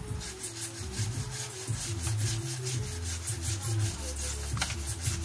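Quick rhythmic rubbing strokes, about five a second, from a small abrasive sanding band worked by hand, finishing a worn rocker arm's surface. The strokes stop with a sharp click near the end, over background music.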